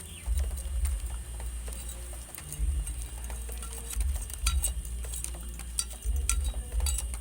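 Seeds being crushed under a glass bottle, with small crackling clicks as the bottle presses and rolls over them to split the seeds open before sowing. Heavy low rumbles come and go every second or two.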